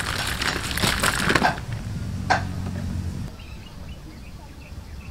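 Crispy deep-fried rat pieces tumbling out of a plastic colander onto a banana leaf: a dense, dry crackling rattle that stops about a second and a half in, followed by a single sharp click about a second later.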